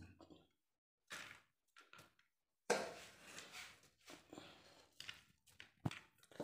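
Faint, on-and-off rustling and scraping from a spoon working the crumbly walithalapa mixture on a banana leaf, with a sharp tap near the end.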